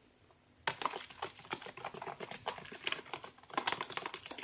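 A stirrer clicking and scraping against a container while a runny glue-and-body-lotion slime base is stirred, in quick irregular clicks that begin just under a second in.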